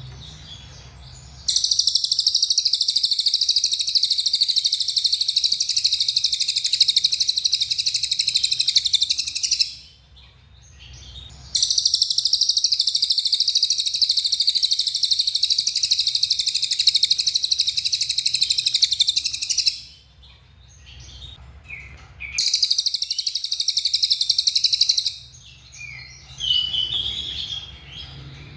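A cililin songbird singing its 'nembak' song: three long, unbroken, high-pitched rapid trills, the first two about eight seconds each and the third about three. A few short chirps follow near the end.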